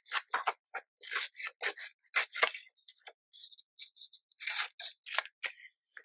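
Scissors snipping through paper: a quick run of about ten cuts, a pause with faint ticks, then a few more snips near the end.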